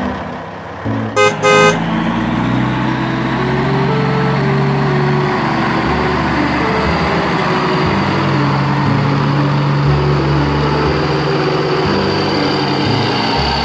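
Two short car-horn honks about a second in, over a steady vehicle engine rumble.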